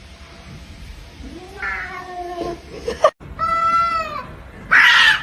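Domestic cat meowing three times: a falling meow about two seconds in, a drawn-out clear meow just after three seconds, and a louder, harsher meow near the end.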